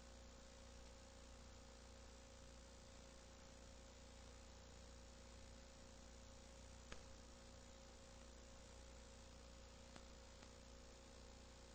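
Near silence: a steady electrical hum with faint hiss from an old videotape's audio track. A sharp click about seven seconds in and a fainter one near ten seconds.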